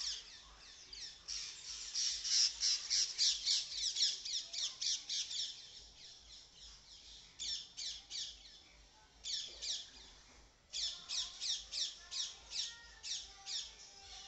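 A green parakeet calling in rapid runs of high, sharp squawks, about four or five a second, with a few short breaks between runs.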